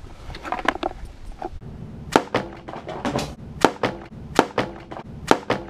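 A series of sharp knocks, coming in pairs about every three-quarters of a second from about two seconds in, some with a short ringing tone.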